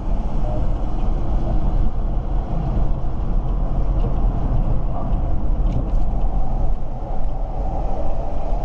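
Steady deep rumble of road and engine noise inside the cabin of a BMW X5 3.0d diesel SUV cruising at highway speed.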